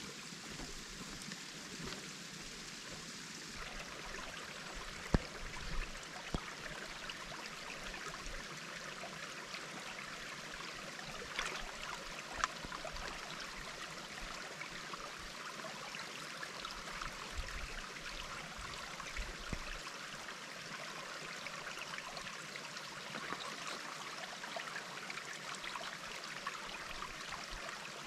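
Steady rush of a flowing creek, with a few scattered sharp clicks.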